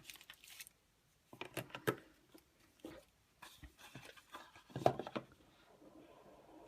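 Light handling noises of the iPhone box and its packaging: scattered soft taps and rustles, the loudest a small cluster about five seconds in.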